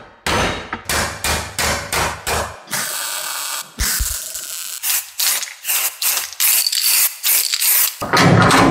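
Repeated hammer blows on a wooden block shaping a sheet-steel panel flange, about three a second, then a steady hiss and a quick run of short crackling bursts as the clamped panel is welded.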